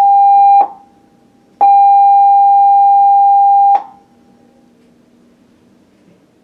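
Cruise ship's emergency alarm for the guests' safety drill: a steady, loud electronic tone sounding in blasts, a short one cutting off about half a second in, then one long blast of about two seconds, the closing long blast of the general emergency signal.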